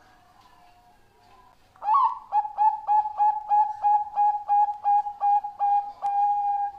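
Zebra dove of the Bangkok perkutut type singing. About two seconds in, a rapid run of a dozen short cooing notes starts, at roughly three or four a second, and ends in one long held note. Before it, fainter cooing is heard.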